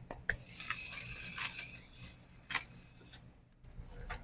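Groceries being packed into a plastic shopping bag: crinkling rustles with a few sharp clicks.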